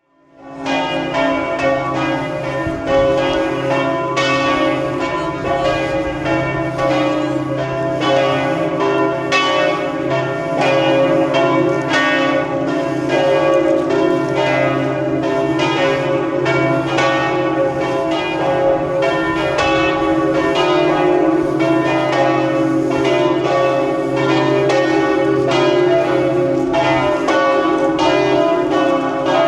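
Several church bells pealing together, their strikes overlapping in continuous ringing that starts suddenly about half a second in.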